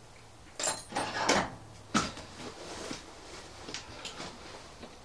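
Handling noise: a cluster of clicks and knocks of equipment being handled, loudest about a second or two in, then a few lighter clicks.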